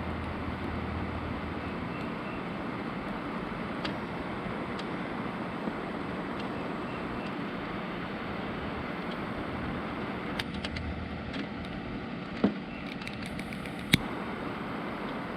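Small butane torch lighter burning with a steady hiss as its flame heats a solder-seal butt connector to melt the solder and shrink the sleeve. A few sharp clicks come near the end.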